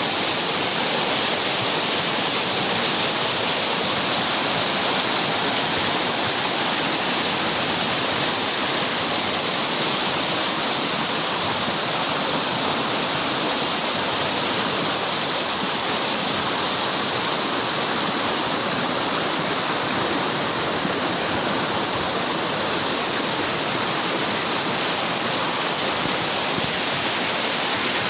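Flash-flood water rushing in a steady, unbroken flow.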